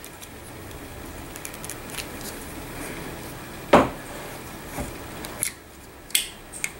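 Handling of a Westernfield .22 bolt-action rifle's steel action as the small bolt-release catch at the back of the receiver is pressed down. One sharp metallic click comes a little under four seconds in, then a few lighter clicks.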